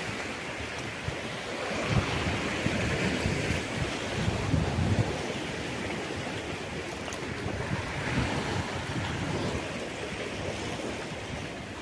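Sea surf washing in, with wind buffeting the microphone; the surf swells twice, about two seconds in and again around eight seconds.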